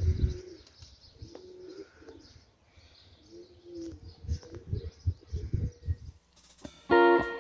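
Pigeons cooing in short, repeated low hoots, with gusts of wind rumbling on the microphone. Guitar music comes in near the end.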